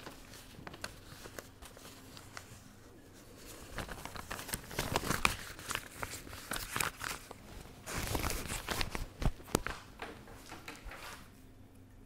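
Close rustling and crinkling handling noise full of small clicks and crackles, busier from about four seconds in until near the end, over a faint steady low hum.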